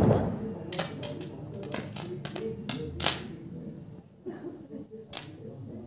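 Firecrackers going off: one loud bang at the very start, then scattered sharp cracks, with faint voices underneath.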